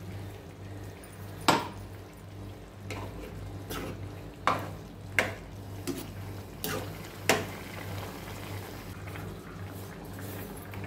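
Steel spoon stirring a thick potato and cauliflower curry in a metal kadai, clacking sharply against the pan about eight times over several seconds, over a low steady hum.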